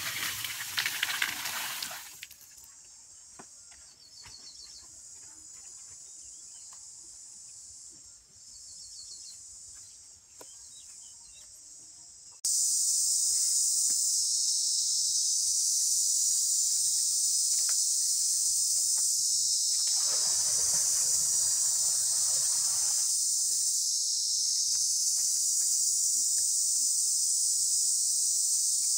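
Water poured from clay pots splashing into a shallow mud-lined pit for about two seconds. This is followed by a steady, high-pitched insect drone that becomes much louder about twelve seconds in. A soft noise lasts about three seconds past the middle.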